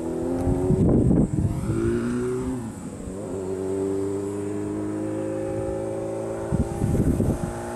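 A motor vehicle's engine running, its pitch stepping and gliding as it changes speed, with wind buffeting the microphone about a second in and again near the end.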